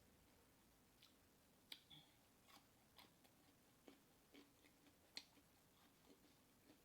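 Faint, irregular clicks and smacks of a person chewing and eating, about ten over the stretch, the sharpest a little under two seconds in and again about five seconds in.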